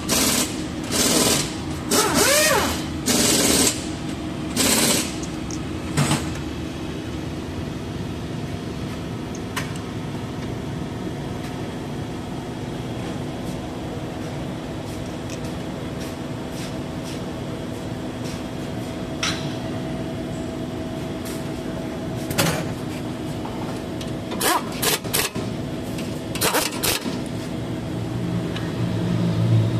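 Metal clinks and clatter of a brake caliper and new pads being handled and fitted over the disc, in short bursts near the start and again about three-quarters through, over a steady machine hum.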